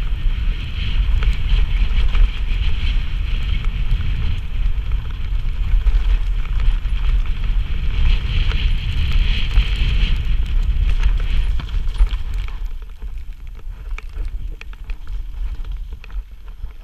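Wind buffeting a helmet-mounted camera's microphone over a mountain bike's tyres rumbling on a dirt trail at speed, with scattered clicks and rattles from the bike. It quietens about twelve seconds in as the bike slows.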